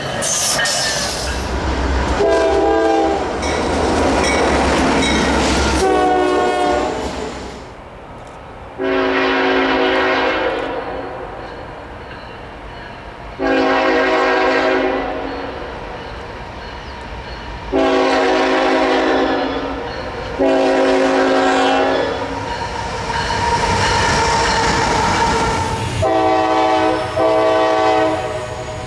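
Locomotive multi-chime air horn sounding a horn show: a series of about eight blasts, each a chord of several notes, several held for two to three seconds and a few quick short toots near the end. The rumble and clatter of the moving train run underneath.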